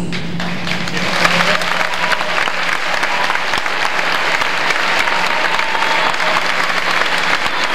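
Large audience applauding, a dense steady clapping that swells about a second in.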